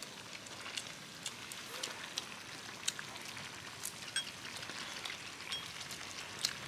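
Stew simmering in a pot on a gas stove: a steady hiss with irregular small crackles and pops.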